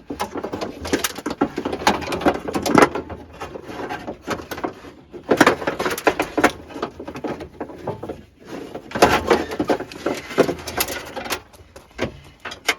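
An old GM pickup window regulator with a broken cable being wrestled out of the door shell: irregular rattling, clanking and scraping of metal against the sheet-metal door, in bursts with short pauses.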